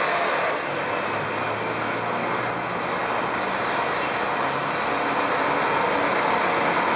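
Briggs & Stratton 2000-watt generator engine running steadily under load, with a dense mechanical whine on top that eases slightly about half a second in.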